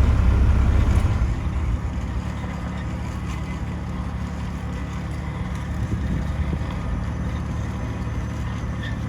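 Diesel engine of heavy farm equipment running steadily, louder for the first second and then settling to an even hum.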